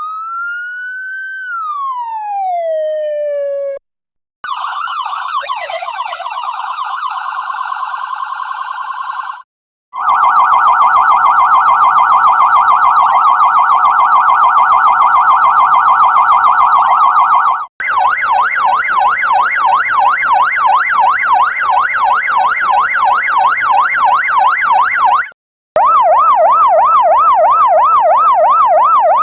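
A run of separate police siren sound effects with short silent gaps between them. First comes a single wail that rises, then slowly falls. Then come several clips of fast electronic yelp, the pitch swinging up and down several times a second, each lasting a few seconds to about eight seconds.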